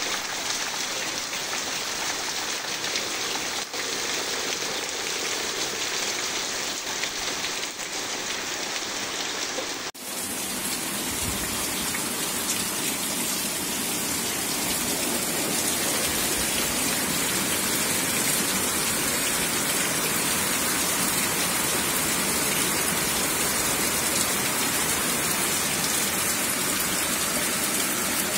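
Heavy rain pouring down in a steady hiss. About ten seconds in it cuts to another recording of rain, louder and hissier.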